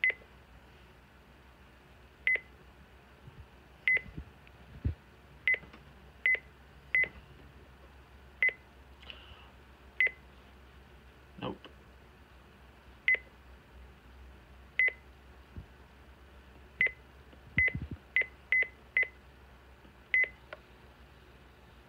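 Midland WR-300 weather radio's keypad beeping: one short high beep for each press of its arrow and select keys, about sixteen times at uneven intervals, with a few soft handling thumps in between.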